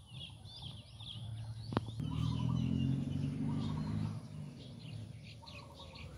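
Small birds chirping and twittering again and again. A single sharp click comes just before two seconds in, then a low steady drone, the loudest sound, from about two to four seconds in.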